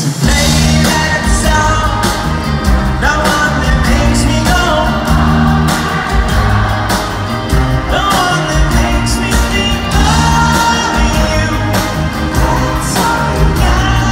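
Pop-rock band playing live in an arena, heard from the audience: a male lead vocal over electric guitars, bass and drums, with the bass and drums coming in right at the start.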